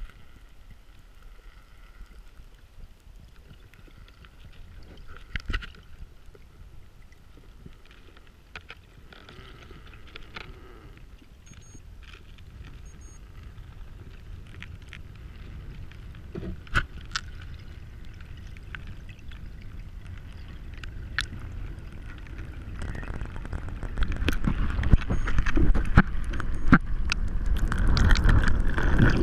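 Muffled underwater noise: a low rumble with scattered clicks and knocks, growing louder over the last several seconds as the camera rises toward the surface.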